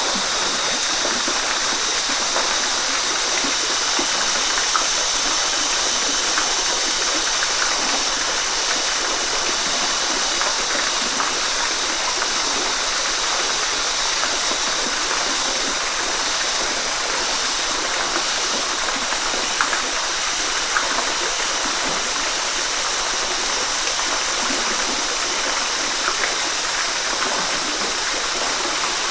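Waterfall: a steady rush of falling water with small splashes scattered through it.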